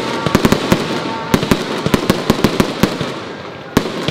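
Aerial fireworks going off: a rapid string of sharp bangs and crackles that thins out about three seconds in, then a loud bang near the end.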